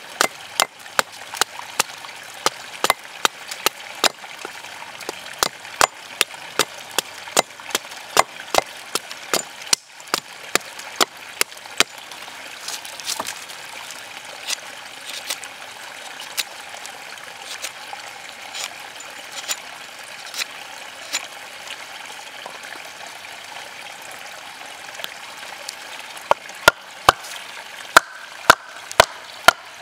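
A Condor Hudson Bay large knife carving a tent stake against a log: sharp knocks of the blade cutting into the stick, one or two a second at first, then quieter and sparser in the middle. Near the end a wooden baton strikes the knife's spine about twice a second, driving the blade into the stake; these are the loudest knocks.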